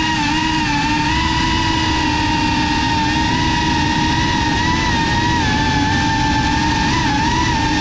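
GEPRC CineLog35 FPV drone's motors and propellers whining steadily in flight, the pitch wavering a little now and then, over a low rushing noise.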